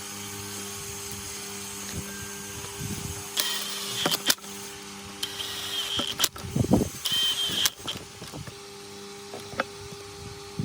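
A machine running with a steady hum, broken by three short, harsh, high-pitched bursts in the middle and several knocks and low whooshes.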